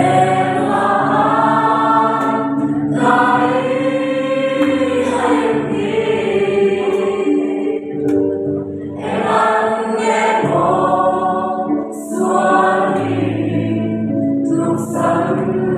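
A large group of men and women singing a song together, in sung phrases a few seconds long with short breaks between them, over steady low sustained notes.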